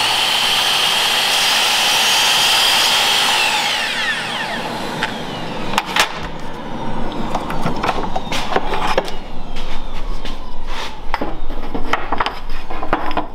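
Festool KAPEX sliding miter saw's motor and blade running at full speed, then winding down over about two seconds with a falling whine. This is followed by scattered clicks and knocks of short wooden blocks being handled and set down.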